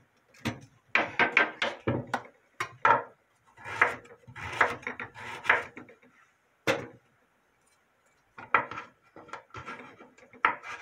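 Kitchen knife slicing a carrot on a wooden cutting board: a run of short, sharp knocks of the blade on the wood, in quick clusters with a pause of about a second shortly after the middle.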